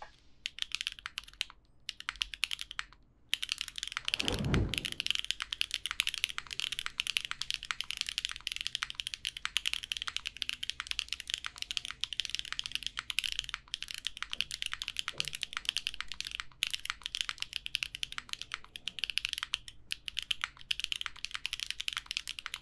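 Steady typing on a Qwertykeys Neo80 mechanical keyboard set up in its gasket dumbbell mount, with lubed Gateron Azure Dragon switches, an aluminium plate and GMK keycaps: a dense run of keystroke clacks broken by a few short pauses. A low falling whoosh sounds about four seconds in.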